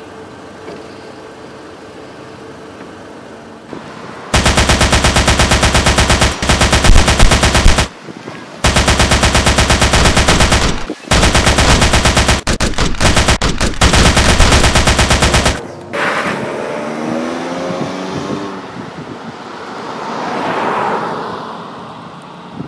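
Automatic gunfire in long, very loud bursts, starting about four seconds in and stopping and restarting several times over some eleven seconds. It is followed by a quieter rushing noise that swells and fades near the end.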